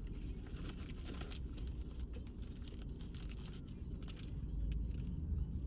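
Light crinkling and small sticky crackles from hands squeezing and handling a freshly opened sticky squishy toy and its packaging, over a steady low rumble.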